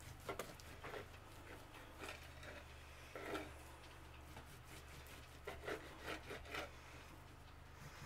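Kitchen knife slicing through a slab of raw bacon on a cutting board: faint, short cutting strokes and taps of the blade on the board, coming in a quick run a little after halfway. A low steady hum lies underneath.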